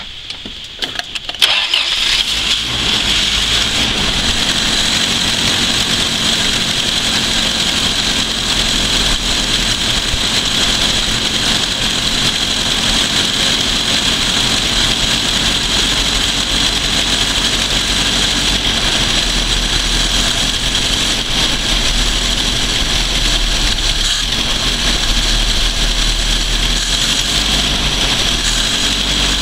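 1979 Toyota pickup's 20R 2.2-litre four-cylinder engine cranking briefly and catching about a second and a half in, then running steadily on a cold start, before it has warmed up. Heard close to the open carburetor with the air cleaner off, with a steady hiss over the engine note.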